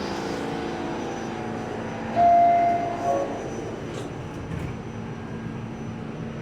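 New York City subway train running with a steady motor whine and rumble. About two seconds in comes a short horn blast, with a shorter second toot right after it.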